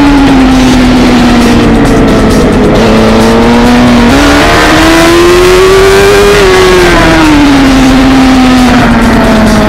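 Suzuki GSX-R1000 superbike's inline-four engine, recorded onboard at race speed with wind rush over the microphone. The engine note falls, jumps up about four seconds in and climbs as the throttle opens, then falls away again.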